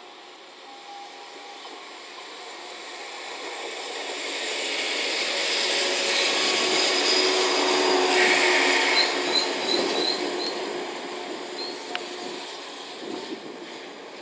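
A JNR 443 series electric inspection car (KuMoYa 443) passing through a station: its rolling and running noise builds to a peak about eight seconds in, then fades as it goes by. A few short high squeaks sound just after the loudest point.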